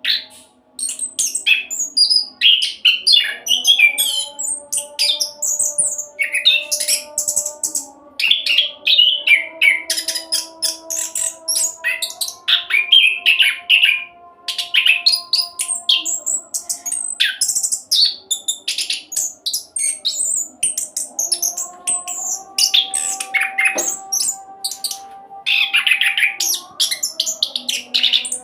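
Orange-headed thrush singing a fast, continuous rolling song of varied chirps and whistled phrases with only brief pauses, over faint steady low tones.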